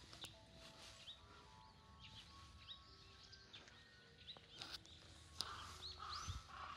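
Faint small-bird chirps: short, high, hooked notes repeated every second or so over quiet outdoor background, with a few faint clicks.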